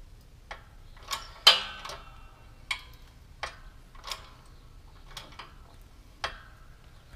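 Steel parts of an AK barrel assembly under a shop press's load giving about nine sharp, irregularly spaced metallic clicks and pings as the barrel is forced out. The loudest comes about a second and a half in and rings briefly.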